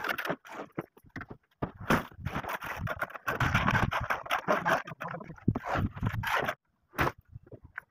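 Metal tools working wet concrete: irregular scraping strokes of a mason's trowel spreading the mix and a shovel scraping concrete in a metal pan, broken by a few short silences.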